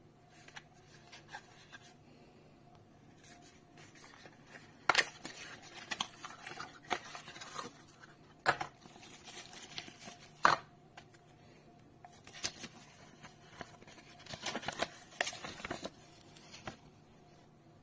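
Cardboard box and paper packaging handled while unboxing: irregular rustling, crinkling and scraping, with a few sharp snaps of cardboard and paper.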